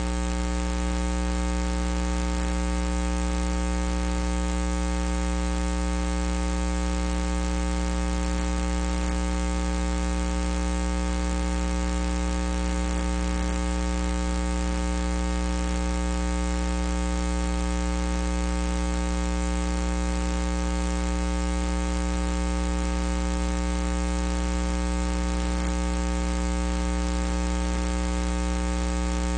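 Steady electrical mains hum and buzz: a low drone with a stack of higher overtones, unchanging throughout.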